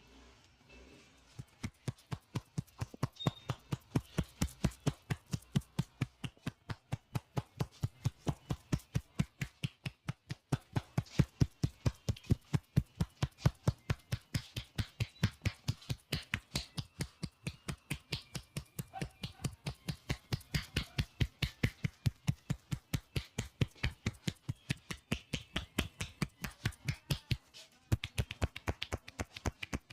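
Barber's hands striking the head in a percussive massage: sharp, even slaps or chops, several a second, starting a second or two in, with a brief pause near the end.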